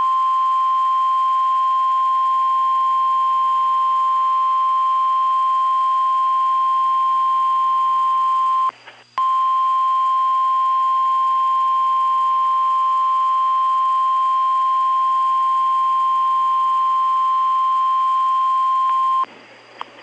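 NOAA Weather Radio warning alarm tone: a single steady 1050 Hz tone sounding the alert for a tornado warning. It breaks off for about half a second near the middle, resumes, and cuts off shortly before the end.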